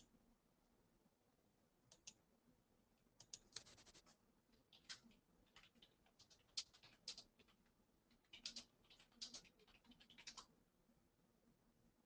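Near silence with faint, irregular clusters of small clicks from about two seconds in until near the end, like typing on a computer keyboard.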